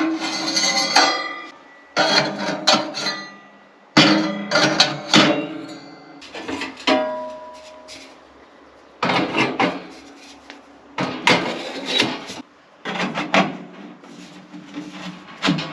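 A hammer striking wood in short bursts of several blows, a new burst about every two seconds, some blows leaving a brief ringing tone.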